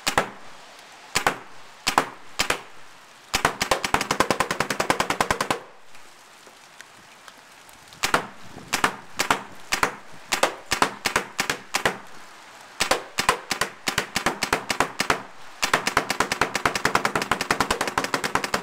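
Empire Axe electropneumatic paintball marker firing on its lowest ramping setting: a few single shots, then strings of shots at several a second, with two fast runs of rapid fire, one about three and a half seconds in and one near the end.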